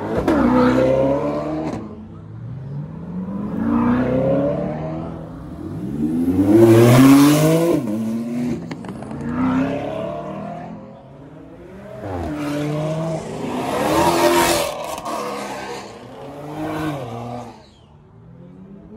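Sports cars, among them a C8 Corvette, revving and accelerating past one after another. Each engine note rises in pitch, then falls away as the car goes by, about six passes in all.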